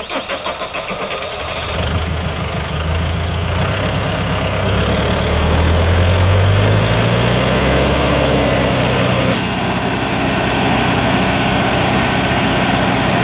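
Landini farm tractor's diesel engine running under load as it pulls a loaded trailer across a concrete bridge. It chugs unevenly for the first couple of seconds, then revs up over the next few seconds and settles to a steady run, dipping slightly about nine seconds in.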